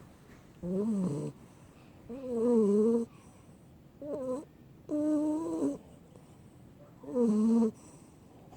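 A sleeping pit bull puppy snoring: five pitched, whiny snores, one every second and a half to two seconds.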